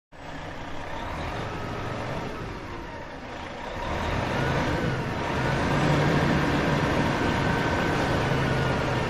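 Van engine sound effect: the motor runs steadily and grows louder about four seconds in, with a faint whine that glides up and down in pitch.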